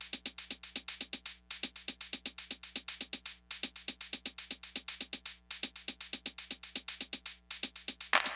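Background music with a fast electronic drum-machine beat: crisp ticking hits about eight a second, pausing briefly every two seconds, with a hissing wash coming in near the end.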